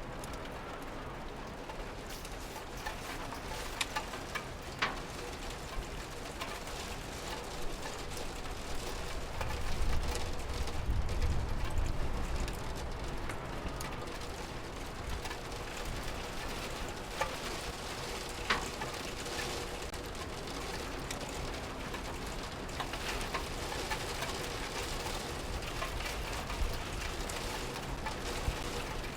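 Steady rain pattering, with scattered louder single drips, and a low rumble swelling for a couple of seconds about ten seconds in.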